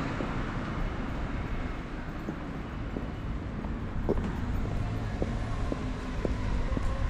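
Street traffic noise, a steady low rumble of passing cars, with wind buffeting the microphone. Faint short ticks come about twice a second from about four seconds in.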